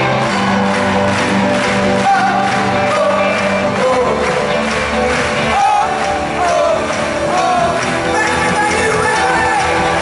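Live pop-rock band playing with a lead singer, heard from among the audience in a large concert hall, with crowd voices mixed in.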